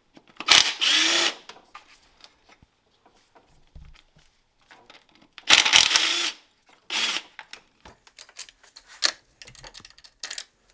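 Cordless power driver with a socket extension spinning out bolts in an engine bay: two runs of just under a second each, about half a second and five and a half seconds in, and a shorter one about a second later, with small clicks of metal between.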